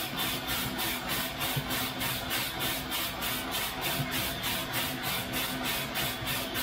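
Green coffee beans tumbling in the rotating drum of a Loring 15k Falcon roaster early in the roast, an even swishing about five times a second over the roaster's steady machine hum.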